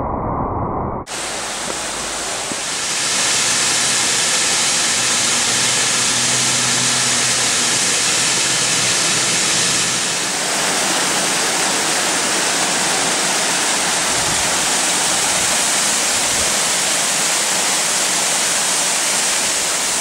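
The roughly 20-metre Weißbach waterfall in the Bavarian Alps, its water pouring down as a loud, steady rush. The rush starts suddenly about a second in, after a muffled stretch.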